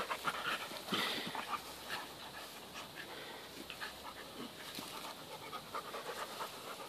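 Dogs panting while play-wrestling, busiest in the first second or so and quieter after.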